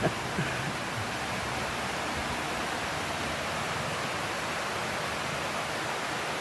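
Heavy tropical rain falling steadily, an even hiss.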